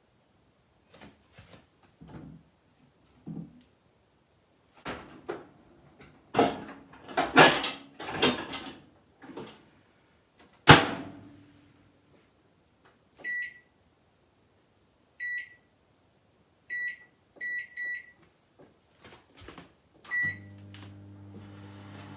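A microwave oven being loaded and started: clattering and knocks as the dish goes in, one sharp bang, then six keypad beeps. Near the end the oven starts running with a steady low hum.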